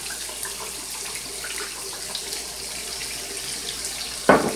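Chuck roast searing in hot oil in a frying pan: a steady sizzle with small crackling pops. One brief, louder sound cuts in near the end.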